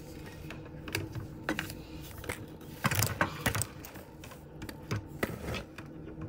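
Irregular light taps, clicks and rubbing from hands handling plastic dolls and brushing past close to the microphone. A louder cluster of knocks comes about three seconds in.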